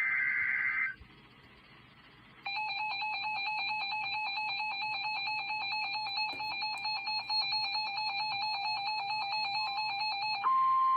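NOAA Weather Radio alert coming in on a weather radio. It opens with the last of a short burst of SAME digital header tones, then after a brief pause comes about eight seconds of an electronic alarm of several tones stepping rapidly up and down. Near the end this gives way to the steady 1050 Hz warning alarm tone that comes before the spoken warning.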